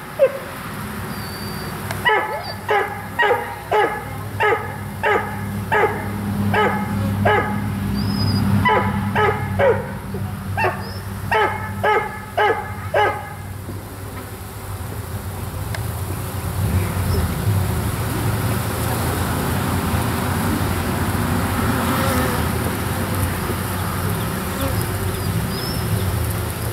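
A dog barks repeatedly in quick runs for about the first half, then stops. Underneath and after it, the steady low hum of a honeybee swarm massed at a hive entrance.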